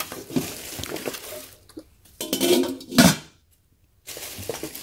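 Oneida stainless steel pots and pans knocking and clinking as they are set down and a tempered glass lid is put on the stockpot, with the sharpest knock about three seconds in.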